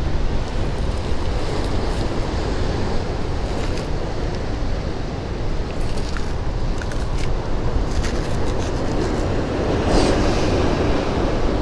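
Ocean surf breaking and washing over rocks: a steady rushing, with wind rumbling on the microphone. The surge swells near the end.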